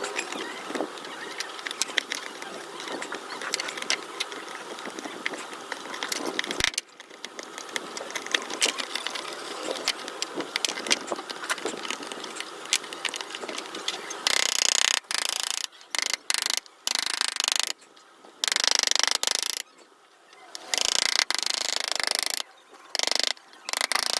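Hand woodworking on a piece of wood: a long run of dense small clicks and scraping, then loud stretches of hissing noise, from about halfway, that cut in and out abruptly several times.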